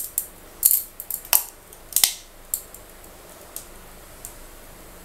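Sharp clicks and taps of a plastic mixer jar against a steel pudding mould as thick custard batter is poured into it, many in the first two seconds and then only a few faint ticks.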